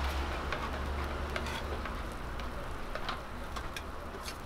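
Fried rice sizzling on a flat-top griddle, with scattered sharp clicks and taps as two flat spatulas scrape and push it into a mound.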